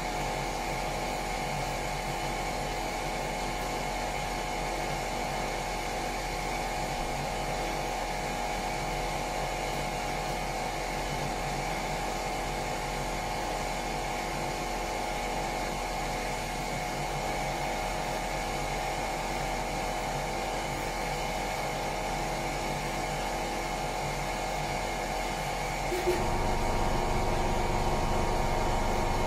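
Electric power sander running with a steady whine, sanding the bilge. Near the end there is a click, and the whine shifts to a slightly louder, different pitch.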